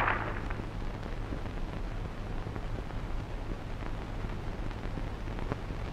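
Low hum and faint crackle of an old film soundtrack, with scattered small clicks.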